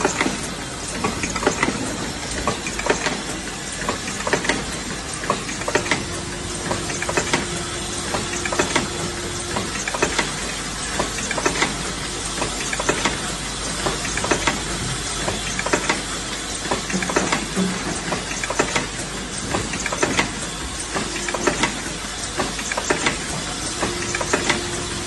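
Full-automatic induction brazing machine for saw-blade teeth running: a steady hissing noise with frequent irregular clicks and clacks from its mechanism. A low steady tone comes in for a few seconds twice, the second time near the end.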